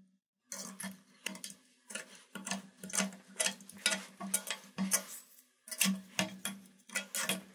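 Metal tools clicking and scraping against the old rusty rivets in a cleaver's wooden handle as the rivets are worked loose and pushed out: a quick, irregular run of sharp clicks and taps.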